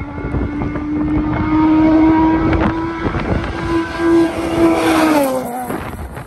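Rally car engine at full throttle, a steady high note held for several seconds with a few sharp cracks, then falling in pitch as the car passes close by about five seconds in.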